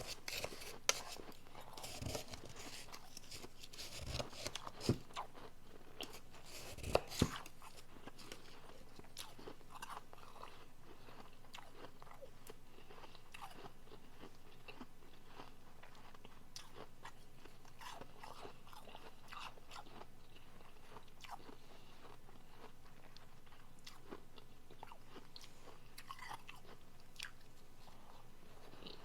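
Close-miked biting and chewing of soft refrozen powdery blender ice. A few loud crunching bites come in the first several seconds, then steady, quieter chewing crunches follow.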